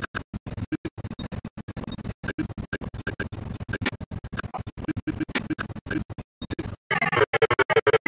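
Film audio cut into rapid stuttering fragments, many tiny snippets a second with silent gaps between them, like record scratching. About seven seconds in, a louder, harsher and denser burst of higher sound cuts in.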